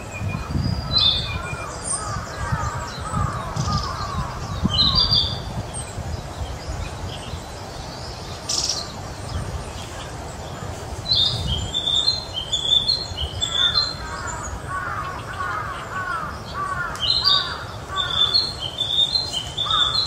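Male narcissus flycatcher singing in short, high, repeated phrases: a few near the start and two longer runs in the second half. Between them another bird gives lower series of quick repeated arching calls.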